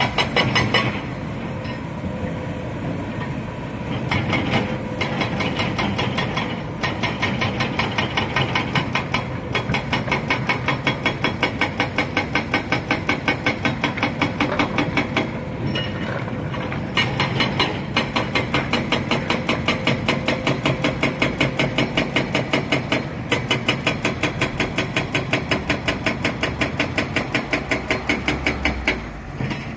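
Excavator at work, its diesel engine running under a fast, regular knocking of about three to four beats a second that drops away for short spells now and then.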